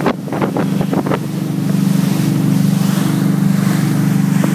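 Motorboat engine running steadily under way, a low drone. Wind buffets the microphone and the wake churns behind the boat.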